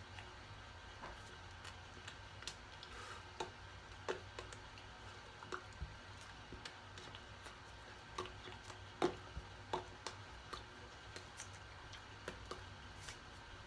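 Scattered soft clicks and taps of hands moving and touching one another while signing, irregular, the sharpest about nine seconds in, over a low steady hum.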